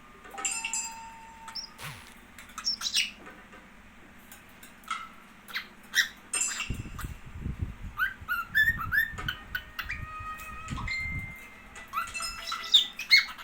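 Cockatiel chirping and giving short whistled calls, with scattered sharp clicks. A low rumbling noise runs for a few seconds near the middle.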